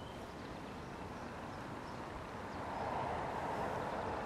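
Steady outdoor background noise, a hiss with no distinct events, getting louder about three seconds in.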